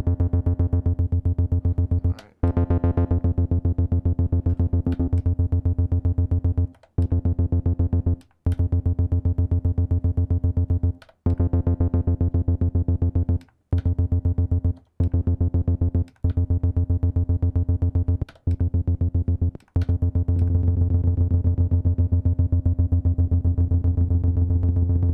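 Roland TB-303-style acid bass synth playing a rapid, unchanging run of sixteenth notes on a single pitch. It cuts out briefly about nine times as playback passes between the Boutique TB-03 and an original TB-303. About 20 seconds in, the bass gets heavier.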